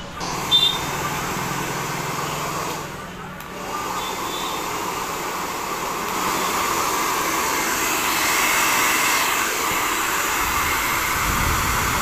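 Handheld hair dryer running after its power cord was replaced, its motor and fan blowing a steady rush of air. There is a click about half a second in, the sound dips briefly around three seconds in, and it steps up in loudness twice later on.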